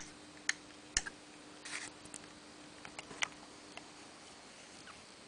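Several sharp clicks from the antenna rotator's microswitch end switch as its lever is worked by hand: three about half a second apart, a short scrape, then two more close together about three seconds in.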